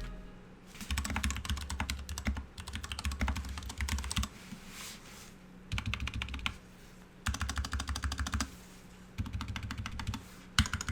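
Typing on a GK61 60% mechanical keyboard: rapid key clicks in bursts of one to three seconds, with short pauses between.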